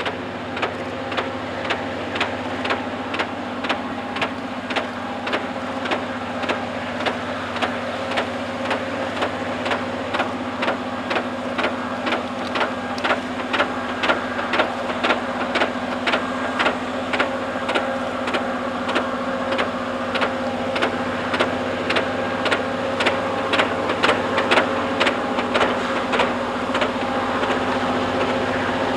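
Railroad rotary snow plow working through deep snow as it approaches: a steady engine drone with a sharp, regular knock about twice a second, growing louder over the stretch.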